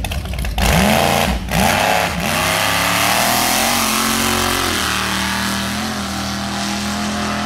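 Mystery Machine–styled drag-racing wheelstander van launching from the start line at full throttle about half a second in: the engine climbs in pitch in three quick rising sweeps with brief breaks between them, then settles into a steadier drone as the van runs away down the track on its rear wheels.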